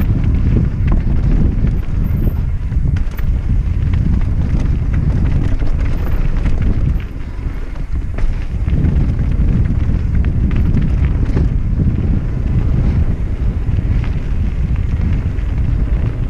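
Wind buffeting the microphone over the rumble of a mountain bike's tyres on a trail, with scattered short rattles and knocks. The noise eases for a moment about seven seconds in.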